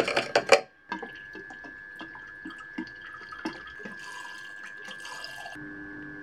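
Coolant being poured: loud sloshing and splashing through a funnel for the first half second, then, after a short break, a quieter trickle with drips and small splashes as it is poured into the car's plastic coolant expansion tank. A steady faint high hum runs underneath.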